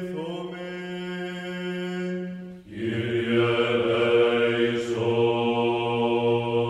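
Byzantine chant: a voice holds one long steady note over a drone, then just under three seconds in a fuller, lower held chant with a deeper drone takes over.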